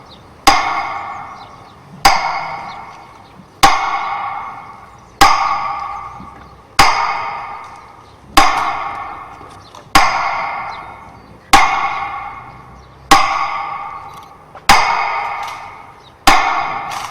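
Slow metronome beats for a minute of silence, one sharp ringing tick about every one and a half seconds, each fading away before the next.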